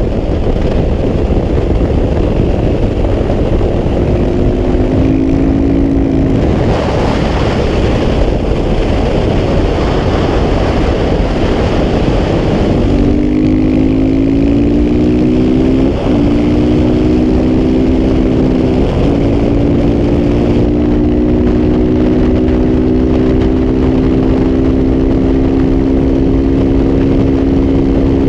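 KTM 690 SMC R's single-cylinder engine with a Wings aftermarket exhaust, running hard on track under heavy wind rush on the microphone. Its note is mostly buried by the wind at first, then climbs from about halfway, breaking briefly twice as it shifts up, and keeps rising toward the end.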